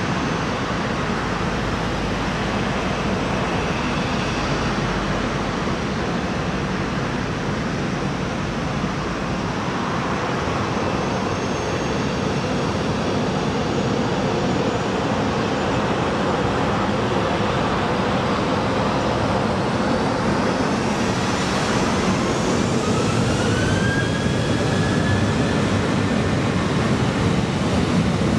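Boeing 737-700's CFM56-7B turbofan engines running as the airliner rolls slowly on the runway, a steady jet noise. About twenty seconds in, a rising whine climbs and then levels off as the engines spool up for takeoff.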